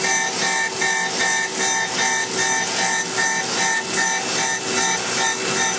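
Wasino Meister V3 CNC surface grinder's wheel fine-grinding a hardened S7 tool-steel punch under coolant: a steady grinding whine made of several held tones that pulses evenly, about twice a second, as the table reciprocates under the wheel.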